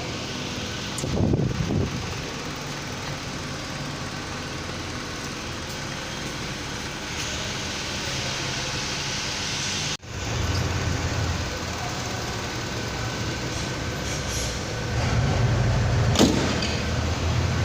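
A car engine running steadily, with a brief sharp break about ten seconds in.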